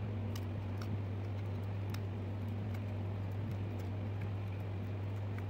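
Steady low hum, with a few scattered small clicks and scrapes from a blade trimming a flexible plastic sheet disc by hand.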